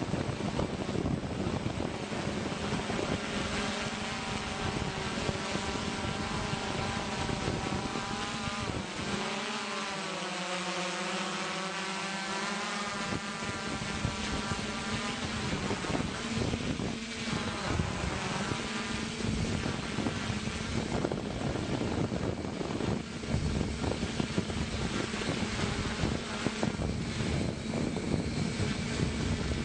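Helicopter running steadily, heard from on board as a dense engine and rotor noise with a constant low hum. Around the middle, a set of tones sweeps down and back up while the deepest rumble briefly drops away.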